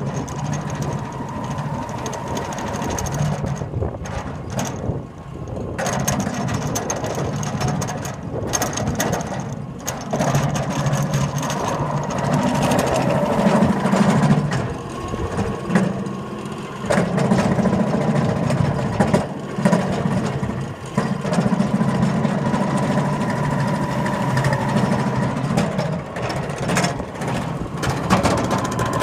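A belt-driven machine running with a steady whine over a lower rumble that swells and fades every few seconds. The noise is the kind that points to a loose belt or bad bearings, and which one it is remains an open question.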